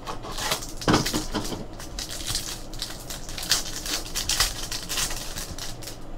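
Trading card packaging being opened and the cards handled: irregular rustling and crinkling with light clicks and taps.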